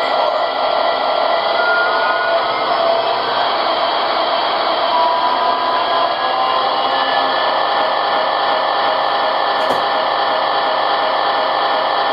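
Digital sound system of an O-scale model SD70-series diesel locomotive playing its prime mover running steadily through the model's small speaker, a constant whir with a few held tones.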